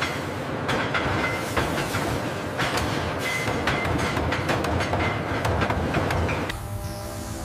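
Machining noise of a drill boring into a steel barrel blank: a dense metallic rattle and clatter with many sharp clicks and a few short high squeals, easing off about a second before the end.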